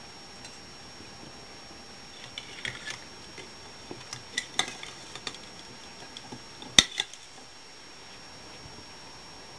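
Metal tongs clinking and tapping against a glass plate as a raw steak is picked up: a scattered run of light clicks, the sharpest about seven seconds in.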